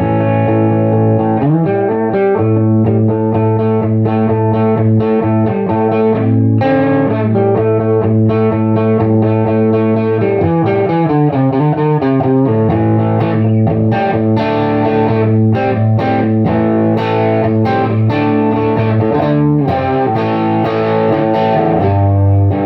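Electric guitar played through a Bell 3723M PA head, heavily overdriven and fuzzed out with no pedals, its negative feedback switch disengaged. It plays sustained distorted chords and notes that change every second or two, with sharper, quicker strummed chords in the second half.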